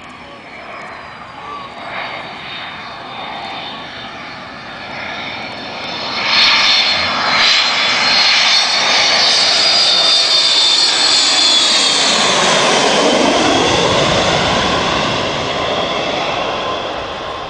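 Sukhoi Su-27 fighter jet flying in and passing: its twin turbofan engines build from a distant rumble to a loud, high whine. About two thirds of the way through, the whine drops in pitch as the jet goes by.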